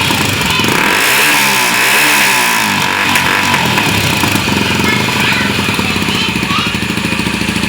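Honda Tornado 250's single-cylinder four-stroke engine running through a Coyote Two-Way exhaust, its handlebar-cable valve set to the open sport position. It is revved up and back down between about one and three seconds in, then settles to a steady idle.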